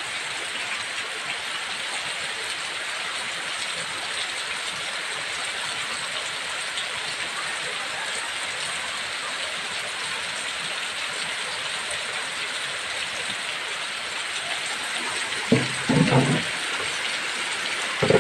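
Heavy rain falling steadily in a dense, even hiss. About three-quarters of the way through, a brief louder sound with a low pitched body cuts in, and a shorter one comes at the very end.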